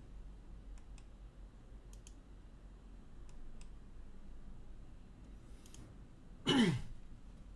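A few scattered soft clicks, like keys on a computer keyboard. About six and a half seconds in comes a short, loud sound that falls sharply in pitch.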